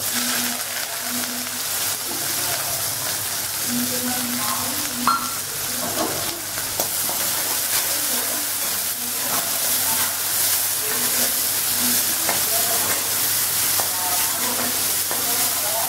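Chopped onions sizzling steadily in hot oil in a metal kadai, stirred with a metal slotted spoon that scrapes against the pan.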